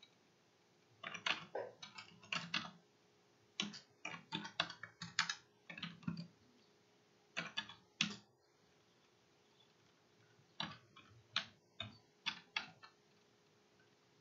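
Typing on a computer keyboard in four short bursts of quick keystrokes, with pauses of about a second between them.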